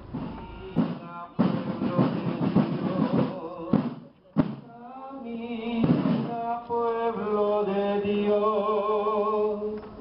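Music: a dense passage of drum-like strikes for the first few seconds, then a sung melody with long held, wavering notes.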